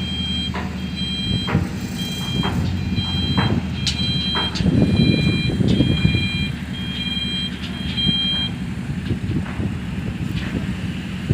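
A vehicle's reversing alarm beeping about once a second over a running engine, stopping about eight seconds in. The engine gets louder for a moment around the middle.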